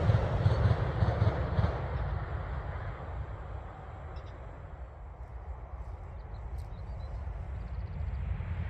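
A passing train's noise fading away into the distance over several seconds, then building again towards the end as another train approaches, with a steady low rumble throughout. A few faint high chirps come through in the quietest part, about halfway through.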